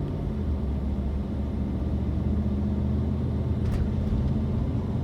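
Steady engine hum and road rumble heard inside the cabin of a moving car.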